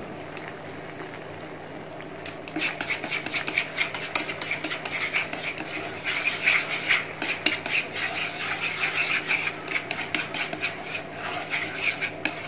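Chopsticks stirring a thick sauce in a nonstick frying pan, rapid scraping and tapping against the pan that starts about two seconds in, as sugar is stirred into the sauce.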